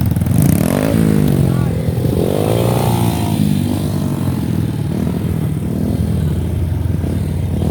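Motorcycle engine running under way. The pitch rises and falls as the throttle is worked, over a steady low engine note.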